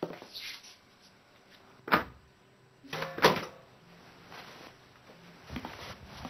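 A few sharp knocks with quiet between them: one about two seconds in, a louder pair a second later, and a softer one near the end.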